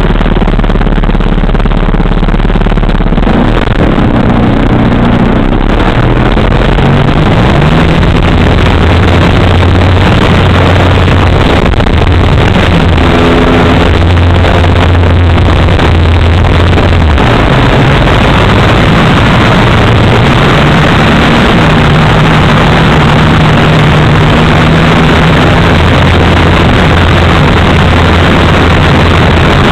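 Radio-controlled model plane's 3W two-stroke gasoline engine, very loud and close, with wind rushing past. It rises in pitch about five to eight seconds in as the throttle opens for takeoff, then shifts pitch several times with the throttle in flight.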